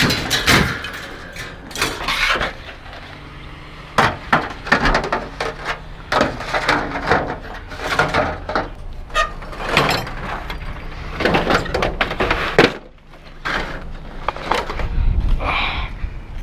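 Scrap and junk being handled and tossed onto a pile or truck bed: a run of irregular clattering crashes and knocks, some sharp like breaking, a second or two apart, with a short lull near the end.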